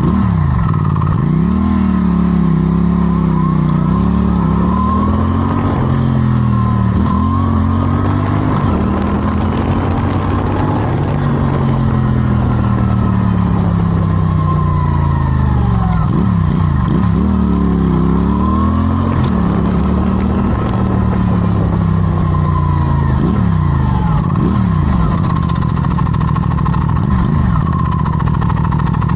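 450 motorcycle engine running and being revved, its note rising and falling several times as the throttle is opened and closed.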